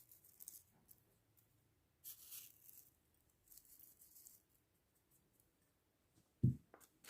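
A mostly quiet stretch with a few faint, brief rustles, about half a second in and again around two seconds in, as dry recipe ingredients are handled. A short, soft low thump comes near the end.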